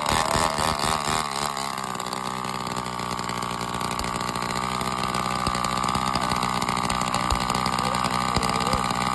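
Small two-stroke engine on a homemade motorised roller skate, idling steadily once it settles from a brief unsteady rev in the first second or two.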